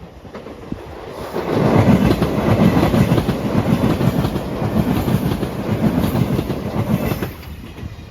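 Five-car limited express electric train passing at speed, its wheels clattering over rail joints in a quick, steady rhythm. The run-by swells about a second and a half in and falls away near the end.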